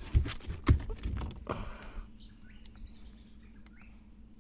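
A run of dull thumps and knocks on a boat's carpeted deck during the first second and a half as a caught cod is handled and flaps. After that it goes quieter, with a few faint bird calls.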